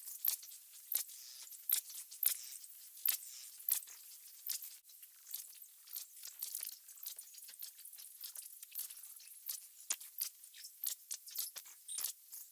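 A rapid, irregular string of short high-pitched clicks, ticks and clinks, several a second: library sound-effect clips joined end to end and sped up tenfold, so each effect goes by as a brief chirpy snip.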